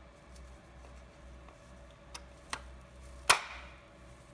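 Nylon brush attachment being pushed onto a clear plastic extraction nozzle: two light plastic clicks, then one loud sharp snap about three seconds in as it locks into place.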